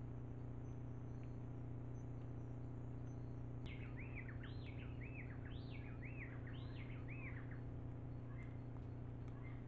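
A bird calling: a quick series of about nine short arched chirps, each rising and falling, starting about four seconds in and lasting about four seconds, over the steady low electrical hum of the trail camera's recording.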